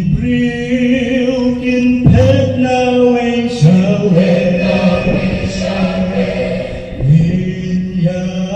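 Mixed choir of women's and men's voices singing in long held chords, with new phrases starting about two, three and a half, and seven seconds in.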